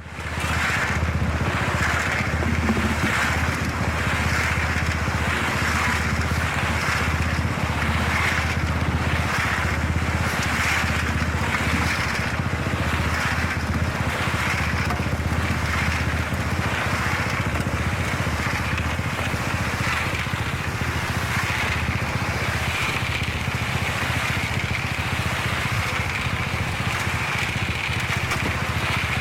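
A motor running steadily, starting abruptly, with a low hum and a hissing, pulsing upper layer.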